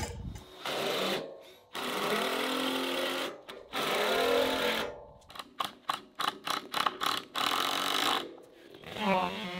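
Cordless drills driving fasteners into wooden deck boards on steel beams: long runs of motor noise broken by short pauses, with a quick string of short trigger bursts in the middle. Music comes in at the very end.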